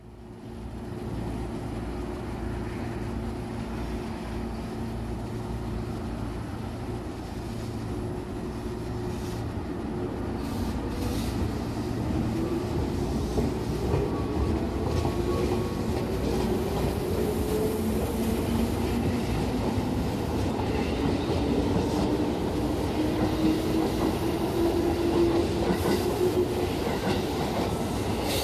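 JR West 221 series electric train pulling away from a station platform. Its motor and gear whine rises slowly in pitch as it gathers speed, with clicks of wheels passing over rail joints.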